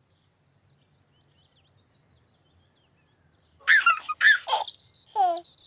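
Near silence for about three and a half seconds, then a burst of bird-like chirps and whistles. It starts with several quick sweeping chirps, then a whistle glides steeply downward, and it ends in a high warbling trill.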